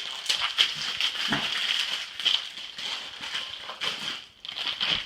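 Plastic packaging of a door hinge crinkling and crackling in irregular rustles as it is handled and pulled open.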